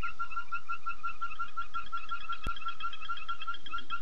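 Night chorus of frogs: a steady, rhythmic pulsing call at about five pulses a second, with fainter, higher pulsing calls layered over it. A single sharp click comes about two and a half seconds in.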